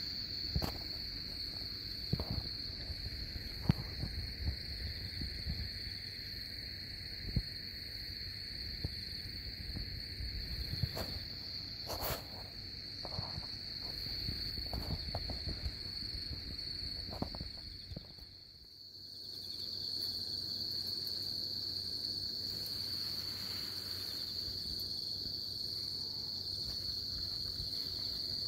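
Crickets chirping in a steady high-pitched drone, with a few scattered soft knocks.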